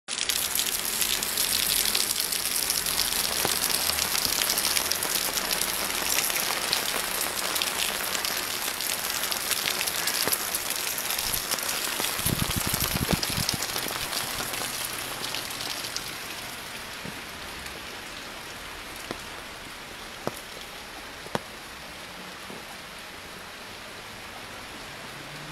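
Steady rain hiss that eases off somewhat in the second half, with a brief low rumble about halfway through and a few sharp clicks near the end.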